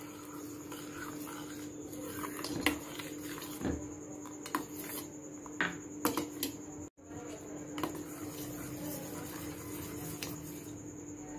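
Metal spoon stirring milk and custard powder in a stainless steel saucepan as the custard thickens, scraping and clinking irregularly against the pan, over a steady low hum.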